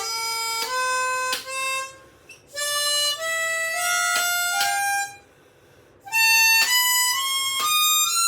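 An Indian sargam scale (sa re ga ma…) played on a reedy instrument with a harmonica-like tone, in three phrases of held notes that each step upward in pitch, with short gaps between them.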